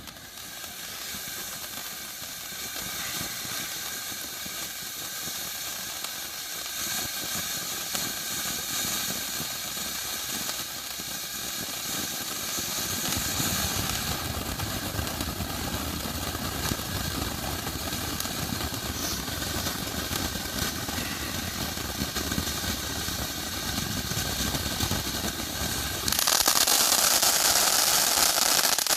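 A 500-gram multi-stage firework fountain spraying with a steady, rushing hiss that swells a little midway, then jumps louder and brighter near the end as a new stage kicks in.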